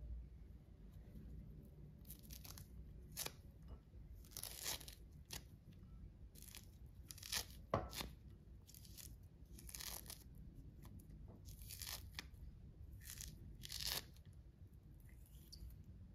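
Tangerine being peeled and pulled apart by hand: a string of short, soft tearing sounds as rind and pith come away and segments separate, with one sharper click about eight seconds in.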